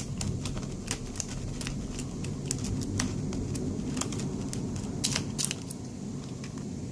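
Lock pick raking the pin tumblers of a 40mm Duramax four-pin laminated padlock still sealed in its plastic packet: a run of quick, irregular light clicks and scratches, thinning out near the end.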